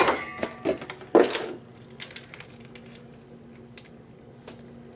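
Kitchen handling sounds as ranch dressing is squeezed from a foil pouch into a ceramic bowl: a clink that rings briefly right at the start, a short rustle about a second in, then a few faint taps over a low steady hum.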